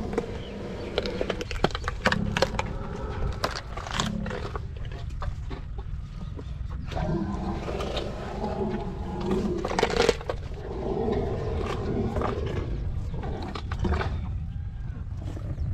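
Asian elephant eating a watermelon at close range, crunching and cracking the fruit as it chews. Several sharp cracks come through, the loudest about ten seconds in.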